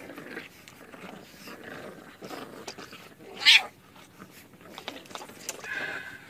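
A cat making sounds, with one short, loud cry about halfway through.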